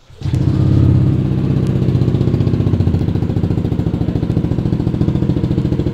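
A Yamaha Aerox 155's single-cylinder four-stroke engine is electric-started about a quarter second in and then idles steadily through an aftermarket trioval-style slip-on exhaust. The owner says the exhaust leaks a little at its underside.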